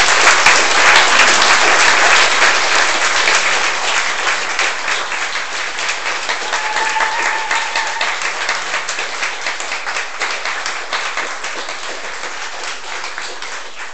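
Audience applauding, loudest at first and gradually dying away.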